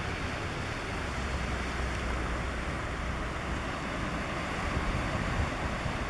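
Sea water washing over a rocky, seaweed-covered shore, with wind on the microphone.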